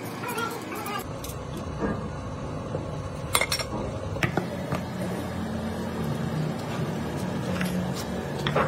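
Steel tools and parts of a truck axle universal joint clinking and tapping against each other as the joint is worked by hand, a few sharp metallic clinks spread through, the strongest about a third of the way in and near the end. A steady low hum runs underneath.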